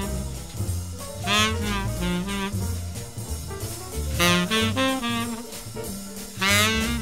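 Jazz tenor saxophone playing three loud, sweeping phrases, about a second in, just past four seconds and near the end, over double bass, piano and drums in a live small-group performance.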